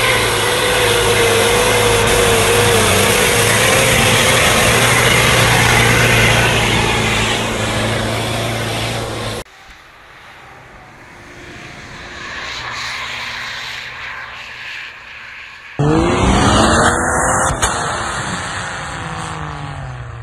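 Off-road 4x4 SUV engines working hard through deep snow, in three cut-together shots. The first is loud and strained, with a wavering whine. About nine seconds in it cuts to a quieter, more distant engine. Near the end it cuts to a loud engine whose pitch sweeps down and rises again.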